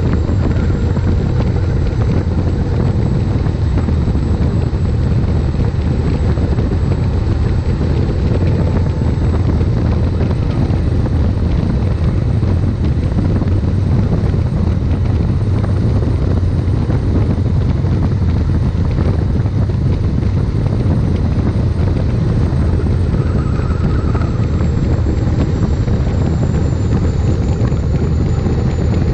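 Gas turbine (turboshaft) engine of a street rail running under way: a continuous high whine over a heavy low rumble. The whine climbs slightly about a third of the way in, holds, then eases back down over the last few seconds.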